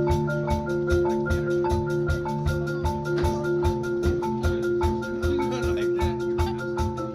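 Marching band music: the front ensemble's mallet percussion plays a quick repeating pattern of short notes over sustained low chords and a steady low beat.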